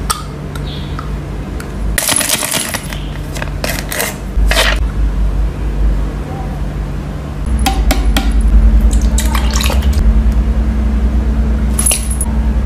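Clicks and rustles of a clear plastic mouthpiece being handled and fitted into the mouth, in several short groups, over a steady low hum.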